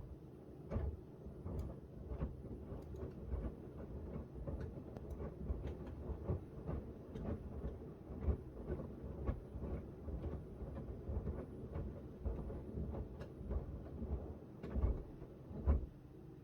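Miele W1 front-loading washing machine turning its drum during a wash, a low rumble with irregular soft thuds from the tumbling laundry, about one or two a second. It starts with a knock and stops shortly before the end.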